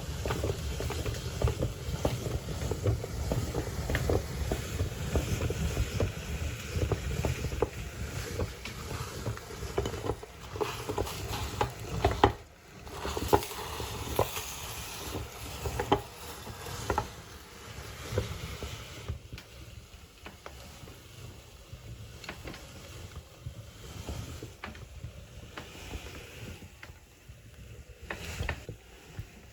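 Meat grinder grinding white chocolate candy: a dense low rumble full of sharp cracks and crunches, with one loud crack about twelve seconds in. After about eighteen seconds the grinding thins out to scattered, quieter clicks.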